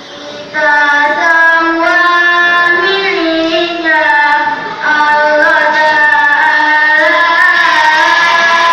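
A young boarding-school student's solo voice singing in a melodious, ornamented style: long held notes with wavering turns, starting about half a second in, with a short breath break near the middle.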